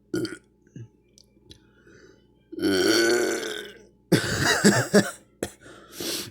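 A man burping several times after drinking soda. A short burp comes first, then a long, loud pitched burp about two and a half seconds in, then further burps.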